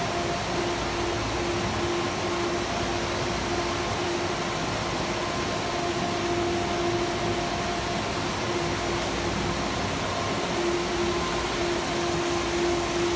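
Water filtration system's pump running steadily: an even rushing noise with a constant hum.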